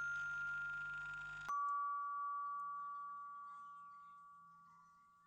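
Electronic door bell chime wired to a PIR motion sensor, sounding a two-note ding-dong. A higher note with a buzz under it is followed about a second and a half in by a lower note that rings on and slowly fades. The chime is the alarm going off because the motion sensor has been triggered.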